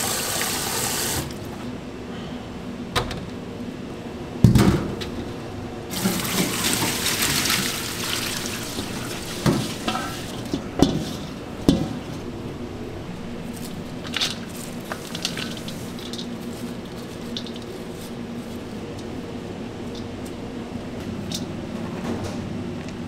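Tap water running onto shredded cabbage in a stainless steel bowl, shutting off about a second in. Then a loud thump, a couple of seconds of rushing water, and several sharp knocks as the wet cabbage is handled in a colander in a steel sink, over a low steady hum.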